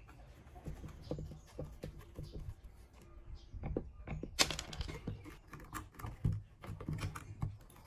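Screwdriver and hands working on a plastic fan frame and its motor: a run of small clicks and knocks, with a sharper clatter about four and a half seconds in.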